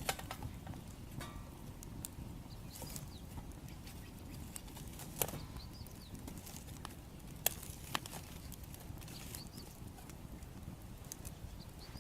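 Wood fire crackling: scattered sharp pops and snaps over a low, steady rumble, with the loudest pops about five seconds in and twice close together around seven and a half to eight seconds.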